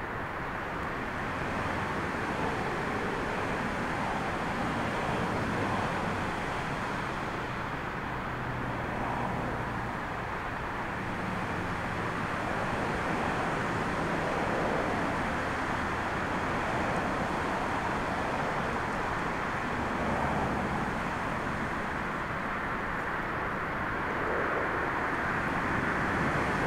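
Boeing 737's twin jet engines running as the airliner slows on the runway after landing: a steady rushing noise with faint low engine tones drifting in pitch, mixed with storm wind on the microphone.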